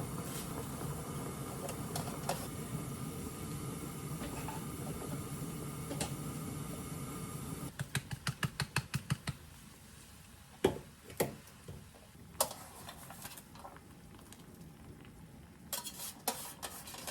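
Home kitchen cooking sounds: a steady background hiss through the first half, then a quick run of about a dozen sharp knocks, then scattered clinks of dishes and utensils.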